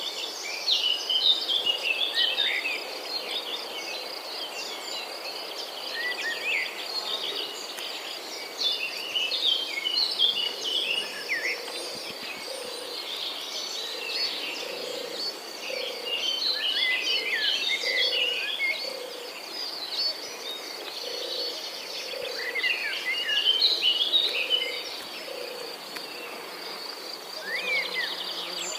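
Several songbirds singing in bursts of quick, jumbled chirping phrases over a steady, high insect trill. In the second half a low note repeats a little faster than once a second underneath.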